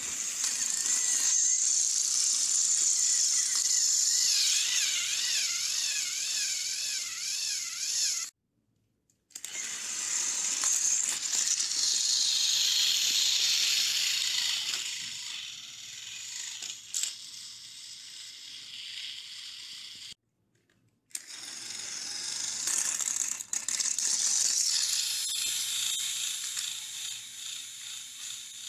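Battery-powered Thomas & Friends toy train engines running on plastic track: a high-pitched electric motor and gear whine with plastic rattling, its pitch wavering and dipping as they run. It breaks off twice for a moment of silence.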